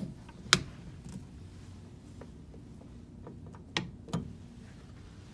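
Sliding balcony door and its handle clacking: one loud sharp clack about half a second in, then two softer knocks close together near the end, over a steady low hum.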